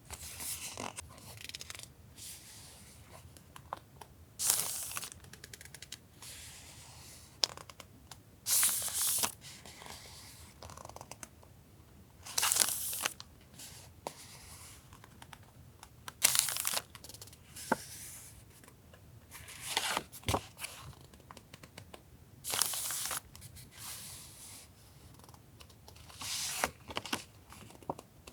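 Sheets of journaling paper and sticker sheets being handled: a rustling, sliding swish of paper roughly every four seconds, with small taps and clicks between.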